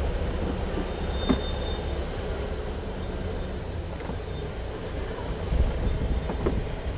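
Steady low rumble of a moving vehicle, with a light knock about a second in and another near the end.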